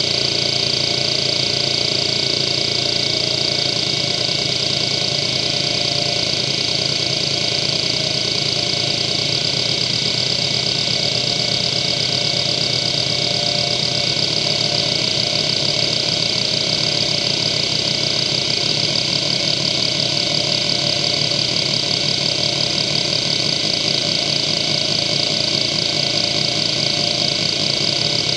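Seagate ST9145AG 145 MB hard drive (1994, two platters, four heads) seeking continuously under the hdmotion test: its heads chatter back and forth in a fast, buzzing rhythm over a steady high spindle whine. The seek pattern, and with it the rhythm, changes about halfway through.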